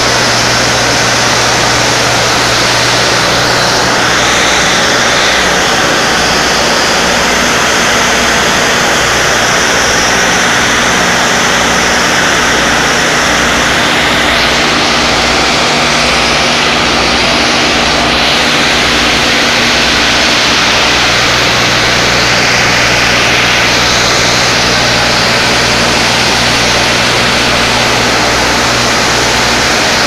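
Steam discharging from a thermal power station boiler: a loud, steady rushing noise with a low hum underneath.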